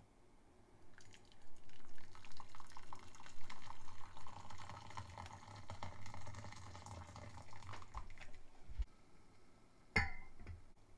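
Just-boiled water poured from an electric kettle into a stainless steel saucepan, splashing as the pan fills for about seven seconds. Near the end, a glass bowl is set down into the pan with one sharp, ringing clink.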